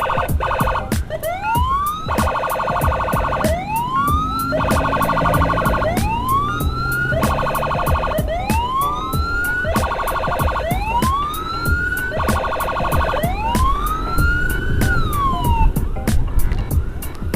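Electronic siren cycling through its tones: about six rising wails, each followed by a stretch of fast pulsing yelp. Near the end a last wail falls in pitch and cuts off.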